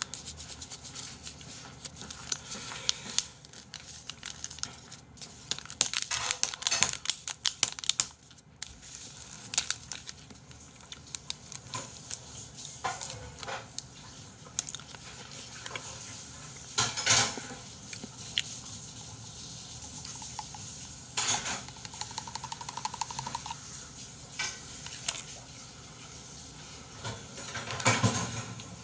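Irregular clicks, crinkles and taps from handling small plastic packets and a drink pouch, thickest in the first third, with a few single louder clicks later.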